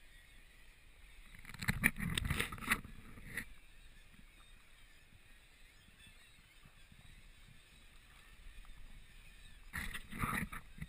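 Quiet lapping water and wind on a jet ski's action camera, with two short clusters of splashing and buffeting, about two seconds in and again near the end.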